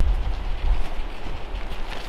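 Gusting wind rumbling on the microphone, with the dome tent's rainfly flapping in it.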